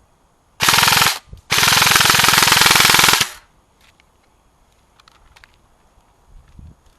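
Airsoft gun firing on full auto, close by: a short burst of about half a second, then a longer burst of nearly two seconds.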